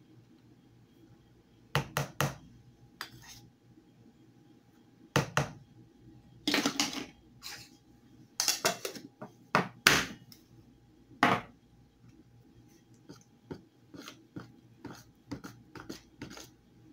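A measuring spoon and a baking-powder can knocking and clinking against a plastic mixing bowl in a string of separate knocks, then lighter, quicker ticks near the end as a spoon starts stirring pancake batter.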